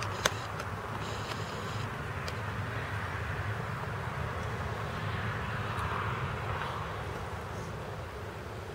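Steady outdoor background rumble, swelling a little around the middle, with one sharp click just after the start.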